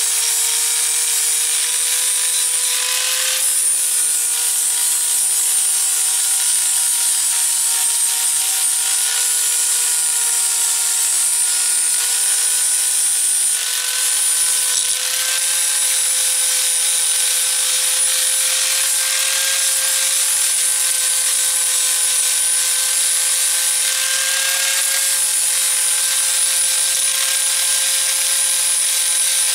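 Electric angle grinder with a flap disc sanding down an old metal spanner to clean it up: the motor runs steadily with a whine over a rasping hiss, its pitch wavering slightly as the work is pressed against the disc.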